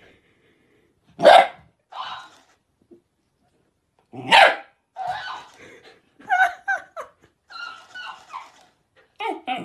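A dog gives two loud, sharp single barks about three seconds apart at a talking hamster plush toy. The toy answers with quieter, higher, squeaky mimicked copies, and a run of this squeaky chatter fills the second half.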